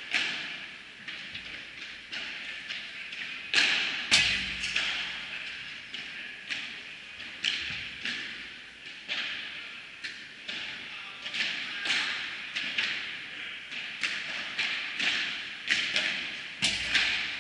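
Padel rally: the ball is struck with solid paddles and bounces off the court and glass walls, an irregular series of sharp pocks, each with a short echoing tail.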